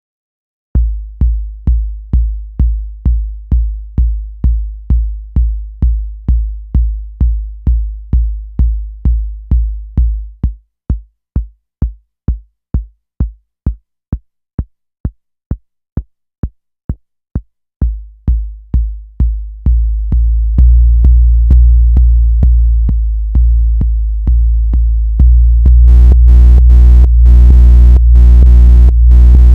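Tip Top Audio BD808, a Eurorack copy of the Roland TR-808 bass drum, playing a steady kick about two and a bit times a second through a compressor. The hits start as booming kicks, turn short and clicky about ten seconds in, then grow into long, overlapping booms that get louder, with a buzzing edge near the end, as the decay is turned up.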